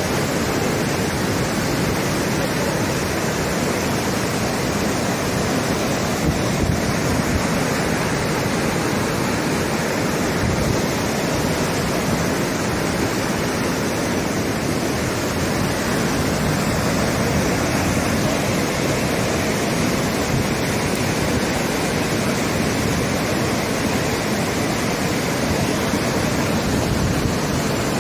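Floodwater pouring over a low concrete causeway and through its culvert in a steady, even rush of water.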